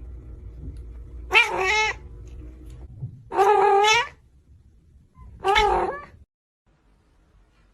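A cat meowing loudly three times, each call under a second long and bending in pitch, the middle one the longest.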